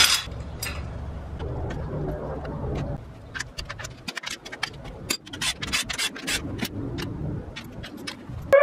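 Hand tools working in the spark plug tubes of a Honda engine's valve cover: scraping and rubbing, then from a few seconds in a run of irregular metallic clicks as the spark plugs are taken out for a compression test. A low steady hum sits under the first few seconds.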